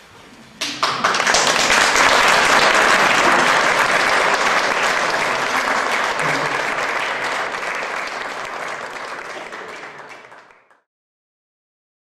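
Audience applauding. The clapping starts suddenly about a second in, tapers off slowly and is cut off abruptly near the end.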